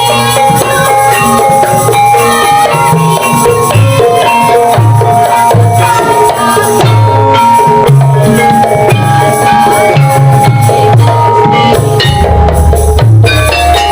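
Javanese gamelan ensemble playing, with held ringing notes from the bronze metallophones over repeated kendang drum strokes.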